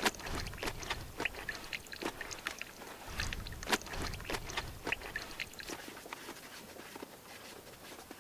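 Gloved hands working inside a rock-lined pond: scattered small clicks, knocks and rustles as stones are touched and a wet cloth is pulled out, with a couple of sharper knocks just after the start and just before four seconds in.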